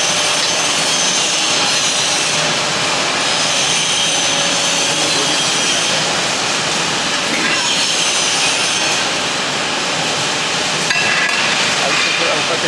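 A 50-ton hydraulic CNC press brake and its workshop running with a steady, loud mechanical noise. A high whine comes in twice, and there is a single sharp click near the end.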